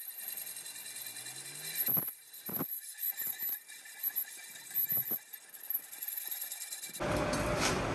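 Metal lathe turning an aluminium alloy wheel rim, the cutting tool peeling off curling swarf, with a steady high-pitched whine and a few short scraping bursts. The sound changes abruptly to a louder, even workshop noise near the end.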